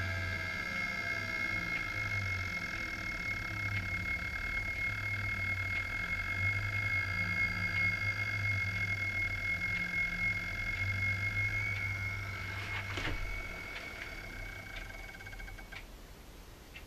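Steady high-pitched electrical whine of several tones from a home-built wind-turbine charge regulator, over a low hum that swells and fades. A few faint clicks come near the end, and the whine then stops.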